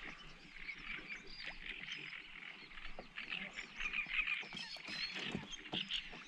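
Dense chorus of small wild animals: many short, high chirping calls overlapping, thickest in the middle, with a few soft knocks about five seconds in.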